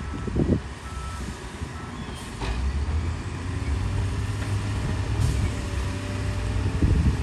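Heavy earthmoving machinery at work: a diesel engine runs with a low rumble that grows louder about two and a half seconds in, a reversing alarm beeps in short tones in the first second or two, and there are a few sharp clanks.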